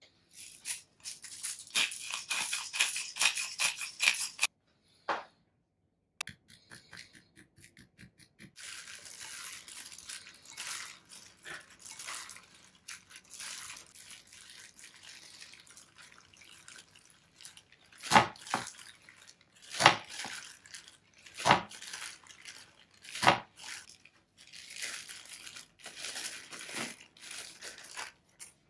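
Plastic bag glove crinkling as it is pulled on, then a gloved hand stirring and squishing minced pork filling in a ceramic bowl. Four sharp knocks against the bowl come in the middle of the mixing.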